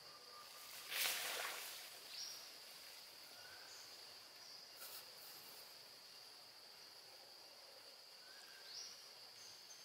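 Steady, high-pitched insect drone, swelling twice. A short, loud burst of noise about a second in.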